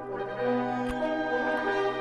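Orchestral background music with held brass notes, with a single sharp click about a second in.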